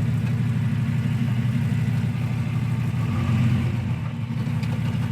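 Off-road 4x4's engine running at low speed while crawling over trail obstacles, swelling briefly a little past three seconds in.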